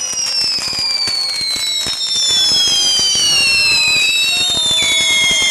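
Fireworks burning on the ground: several shrill whistles sliding slowly down in pitch together over dense crackling.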